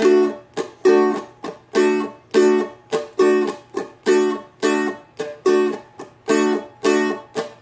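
Seagull Merlin strummed slowly in an even rhythm on one chord, ringing strums alternating with short muted strokes. The mutes are made by easing the fretting hand off the strings rather than palm muting.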